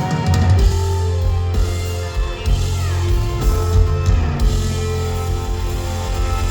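Country band playing an instrumental passage, guitar to the fore over a steady bass, with held lead notes that bend in pitch.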